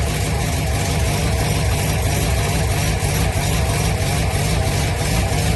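1965 Ford Thunderbird's 390 V8 idling steadily, being run on fresh oil to warm it up.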